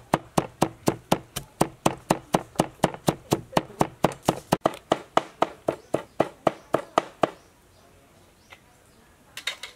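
Cleaver chopping garlic on a wooden cutting board, about four quick, even strokes a second, stopping about seven seconds in. A brief clatter near the end.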